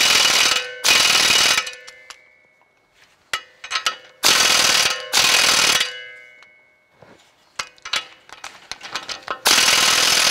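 Pneumatic air ratchet run in short bursts of under a second, five times, turning a lug nut that draws a new wheel stud into the wheel hub, with light metal clicks between bursts. The stud is pulling in hard.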